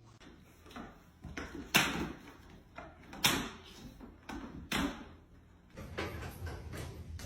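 Three or four sharp knocks or bangs, about a second and a half apart, the loudest near the start; a steady low rumble comes in near the end.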